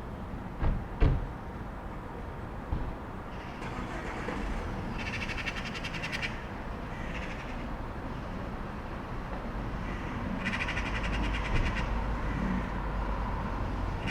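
Calm street ambience: a steady low rumble of distant traffic, two short knocks about a second in, and bursts of rapid chattering bird calls around five seconds in and again near eleven seconds.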